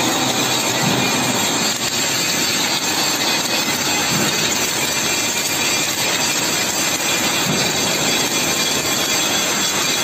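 Automatic submerged arc welding tractor running a fillet weld along a steel T-girder under a bed of granular flux: a steady, even hissing noise with no breaks.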